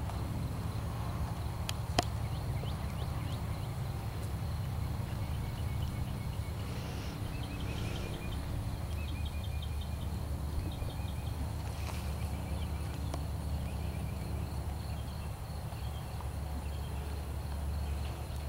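A horse trotting on a sand arena, its hoofbeats soft under a steady low rumble, with high, rapid chirping trills in the background through the middle.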